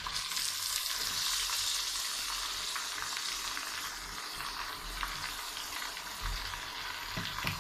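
Sliced onions sizzling as they go into hot oil with fried garlic and whole spices in a metal pan, the sizzle swelling about a second in as they land, with a spatula stirring and scraping. This is the onion-frying stage of a chicken bhuna.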